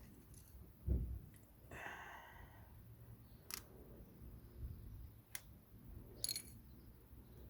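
Faint, sparse clicks of small metal parts being handled: a motorcycle foot peg, its pivot pin and a small locking washer. There is a low knock about a second in and a few sharp single clicks later.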